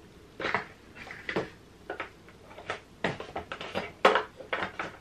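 Cardboard boxes and plastic packaging being handled and put together: about a dozen irregular sharp taps, clicks and knocks, the loudest about four seconds in.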